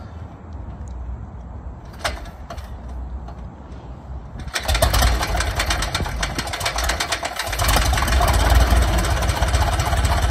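Piper Cub's air-cooled flat-four engine catching after being hand-propped about four and a half seconds in, then running with rapid firing. It falters briefly around seven seconds, then runs louder and steadier at idle.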